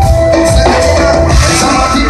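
Live reggae band playing loud over a PA, with a heavy bass line and held notes on top.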